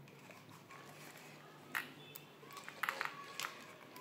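Faint handling sounds of wires and tweezers being worked against an RC truck's plastic chassis: a light click about two seconds in, then a short cluster of sharper ticks around three seconds.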